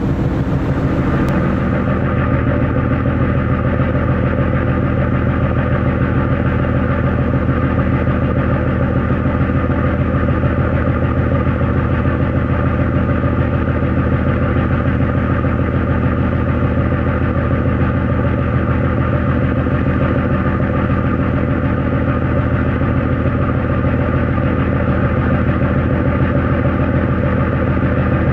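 Steady drone of a car ferry's engines, a low even hum with a constant hiss over it.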